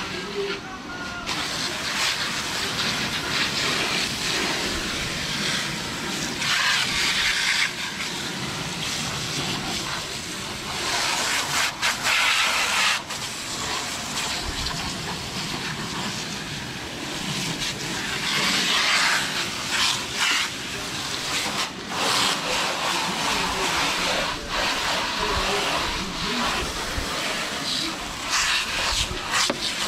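Water spraying from a Turbo Jet wand on a garden hose, set to a wide fan pattern: a steady hiss and splash of spray on a car's engine bay and front bumper, growing louder and softer in stretches.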